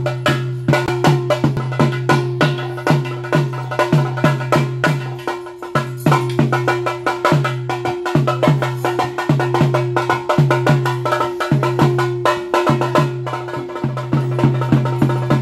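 Live drumming for a bhuta kola ritual dance: a fast, even beat of about three drum strokes a second, with sharp stick or cymbal clicks between them, over a steady held tone.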